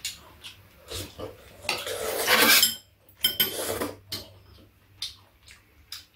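Chopsticks and metal spoons clicking and scraping against ceramic bowls during a meal, in short separate clinks, with one louder noisy stretch of about a second around two seconds in.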